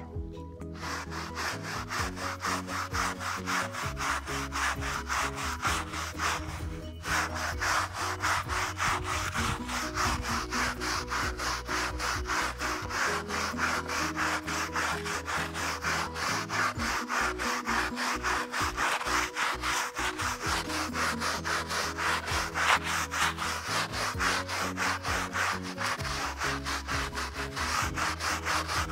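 Stiff-bristled hand brush scrubbing a wet, soapy carpet in quick back-and-forth strokes, pausing briefly about seven seconds in.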